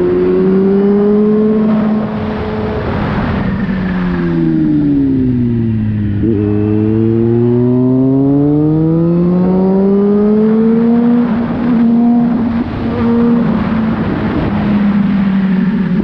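Car engine pulling a vehicle along the road. Its note falls over several seconds to its lowest about six seconds in as the car slows, then climbs steadily over the next five seconds as it accelerates, and levels off near the end.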